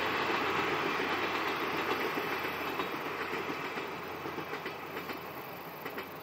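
Express train hauled by DD51 diesel locomotives receding down the line, its wheel clatter on the rails fading steadily away.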